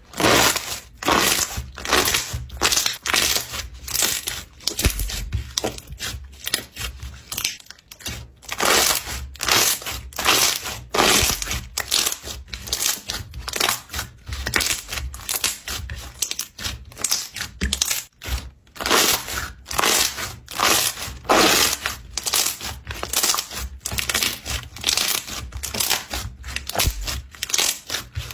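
Slime being squeezed and worked by hand, a dense irregular run of sharp squishing, crackling strokes, several a second.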